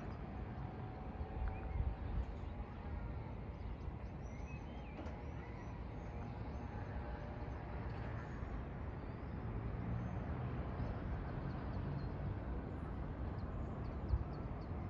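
Outdoor ambience: a steady low rumble, like wind or distant traffic, with small birds chirping faintly now and then, and a single knock near the end.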